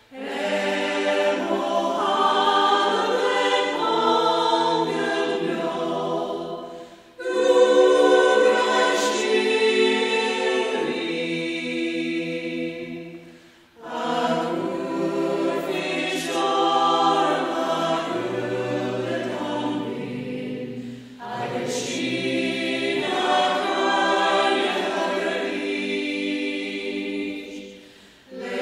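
Background music: a choir singing, in long phrases broken by short pauses about every seven seconds.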